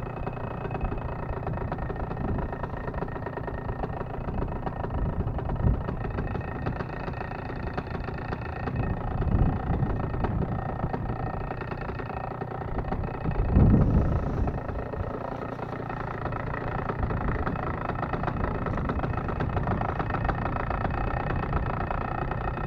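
Paramotor engine running steadily at idle. There are a couple of brief louder low rumbles, one about two-fifths of the way in and one a little past halfway.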